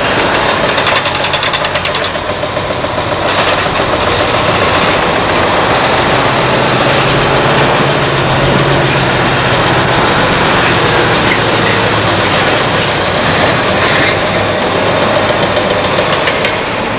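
Heavy diesel construction machinery and trucks running together in a loud, steady din, with a low engine note that rises and falls around the middle.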